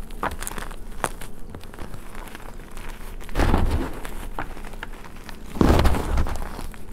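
Hands crushing and rubbing crumbly reformed gym chalk and loose chalk powder, with a constant light crackle of breaking bits. Two louder, longer crushes come about three and a half and five and a half seconds in.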